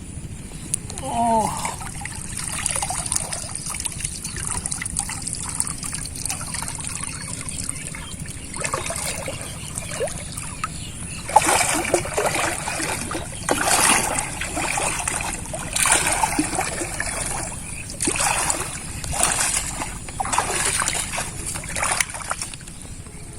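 Pond water splashing and trickling in irregular bursts, more frequent from about halfway on.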